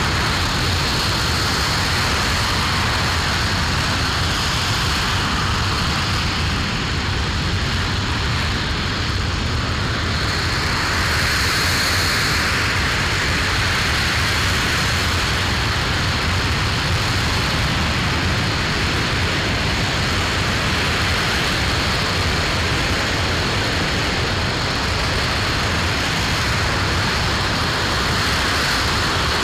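Aerojet Rocketdyne RS-25 liquid-hydrogen/liquid-oxygen rocket engine firing steadily at full run, mid-burn in a ground hot-fire test: a loud, unbroken rushing noise.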